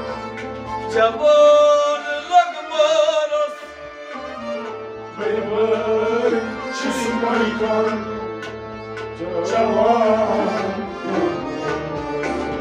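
Kashmiri Sufiyana music: harmonium and string instruments playing over a low repeating drum pulse, with sung vocal lines swelling in the second half.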